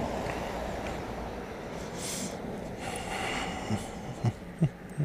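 Camera handling noise: two breathy rushes about two and three seconds in, then four short low knocks close together near the end, over a low steady rumble.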